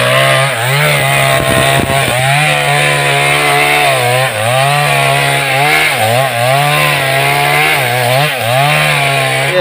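Two-stroke chainsaw running at high revs and cutting into the base of a thick tree trunk to fell it. Its engine note dips briefly in pitch several times as the cut loads it.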